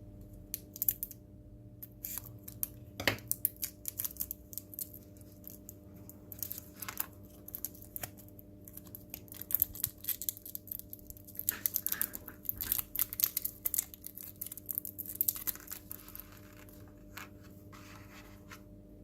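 Small screws and plastic parts being handled and fastened on a tabletop: irregular light clicks, taps and scratching, over a faint steady hum.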